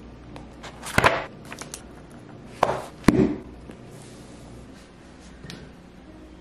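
A book and pen being handled on a kitchen countertop. There is a sharp knock about a second in, then two more close together near the three-second mark as the book is closed and set down, with a few lighter taps between.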